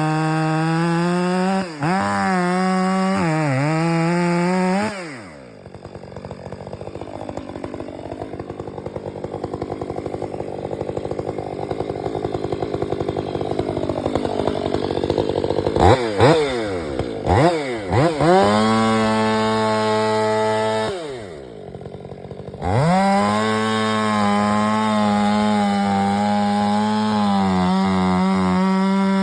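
Stihl 500i two-stroke chainsaw running at high revs, bogging and recovering under load as it cuts. About five seconds in it drops to a slow, ticking idle for several seconds. It then gives a few quick revs and goes back to high revs, with another short drop to idle a little past the middle.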